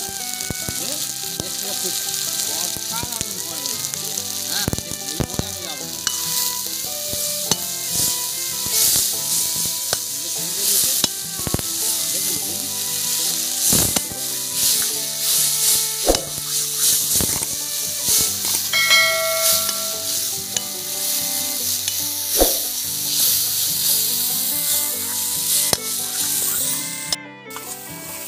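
Spice paste of onion, garlic, ginger, tomato and chilli powder frying in oil in a pan: a steady sizzle, with a spatula stirring and scraping through it in repeated strokes. The masala is being fried down, the stage before the oil separates from it.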